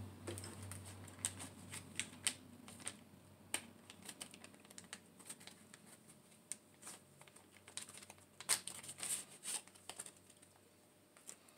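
Faint, irregular small clicks and crinkles of hands handling paper stickers, a card and a thin plastic bag.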